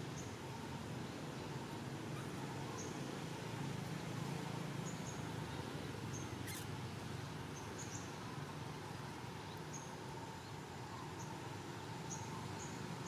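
Faint outdoor ambience among trees: a steady low background with short high chirps every second or two, and one sharp click about halfway through.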